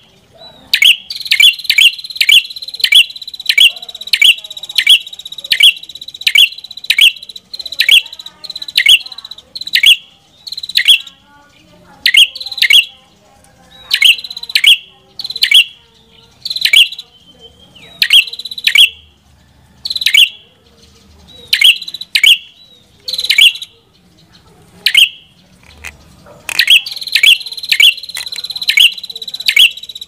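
Ashy tailorbird (prenjak kepala merah) calling: a long series of sharp, downward-slurred notes, about two a second, with a few short pauses in the middle, over a steady high ringing tone.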